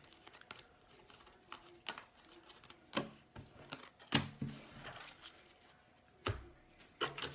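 Baseball cards being handled, flipped through and set down on a wooden table: irregular light taps and clicks, about one every second.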